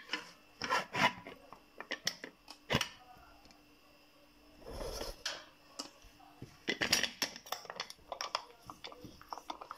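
A pressure cooker's metal lid being fitted and locked shut: scattered clicks and clacks, a short scraping rush about halfway, then a quick run of clicks as it is closed.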